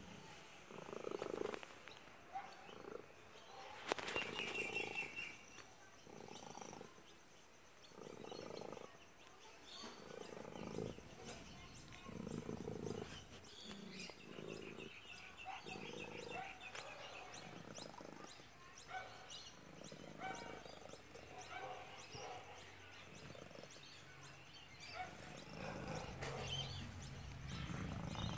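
A domestic cat making a rumbling, purr-like noise in rhythmic bursts about every one to two seconds, likened to a car engine. A sharp click about four seconds in.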